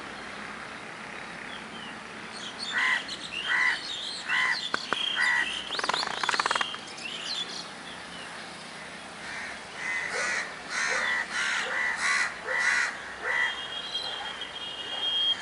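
Crows cawing in two runs of repeated caws, about five a few seconds in and about seven more around ten seconds in, with smaller birds chirping in between.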